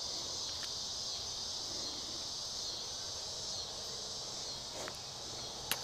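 Steady, high-pitched chorus of summer insects trilling. A small splash in the water comes near the end.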